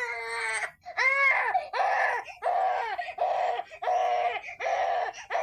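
Baby crying in a run of short, rhythmic wails, about seven in quick succession, each rising and falling in pitch.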